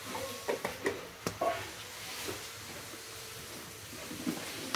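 A few light clicks and knocks of utensils on a cooking pot in the first second and a half, then a faint steady hiss from greens cooking in the pot.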